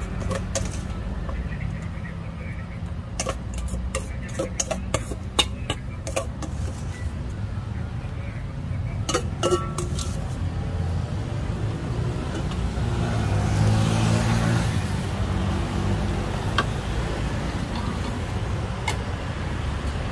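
A metal spoon clinking and scraping against a stainless steel mixing bowl as salad is scooped into a plastic bowl, a run of sharp clinks through the first half. Later a passing motor vehicle rises and fades, over a steady low hum of traffic.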